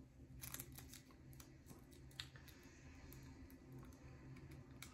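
Near silence with a low room hum and a few faint plastic clicks from an S.H.Figuarts Recoome action figure's joints being worked in the hands, a cluster about half a second in and another about two seconds in.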